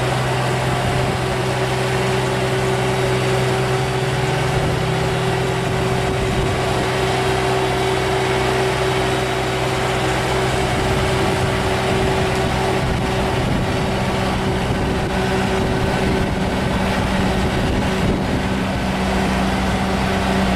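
Mack heavy-haulage prime mover's diesel engine running steadily under load as it pulls a massive oversize load slowly on a multi-axle trailer. Its low drone shifts in pitch about five seconds in, and a new, higher engine tone comes in near the end.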